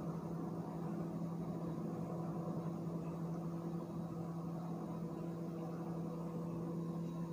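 A steady low hum with a faint even hiss, unchanging throughout, with no distinct knocks or clinks.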